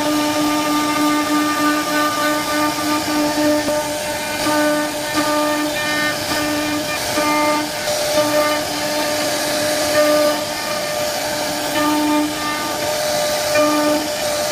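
CNC router spindle carving wood: a steady high-pitched whine over the hiss of the cutter, with the whine dipping out briefly every second or so as the load changes.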